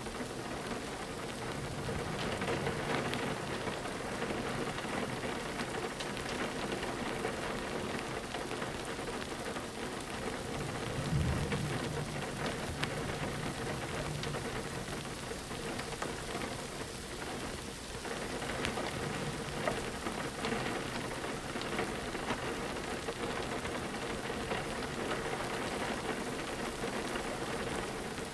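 Steady rain on a window. A low rumble of distant thunder swells about eleven seconds in.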